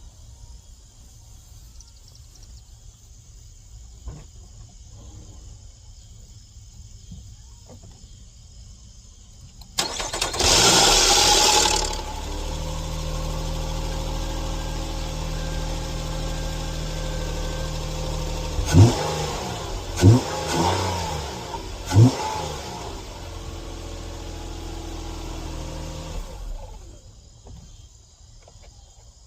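Nissan Maxima 3.5 L V6 started cold after sitting. About ten seconds in, the engine cranks and catches with a loud rattle for about two seconds, then settles into a steady idle. Three brief loud sounds come partway through, and the engine is shut off near the end. The start-up rattle is the sign of a leaking timing chain tensioner that has lost its oil pressure while the car sat, leaving slack in the timing chain.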